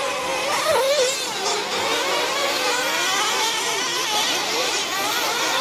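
Several nitro-powered 1/8-scale RC truggy engines whining and revving together as the trucks race, their pitches rising and falling.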